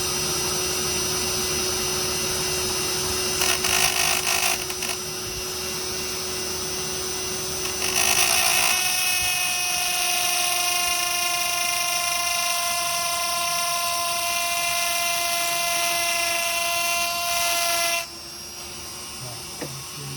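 Dremel rotary tool with a grinding tip whining against a bicycle hub bearing cone spun in a lathe at 1500 RPM, regrinding the pitted bearing race, over the steady hum of the running lathe. The high-pitched whine comes in briefly about three seconds in, then runs steadily for about ten seconds and cuts off suddenly near the end.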